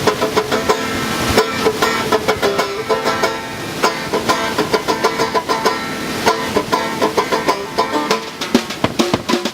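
Banjo picked in quick, steady notes, playing a song's opening, with the rush of a fast mountain creek underneath.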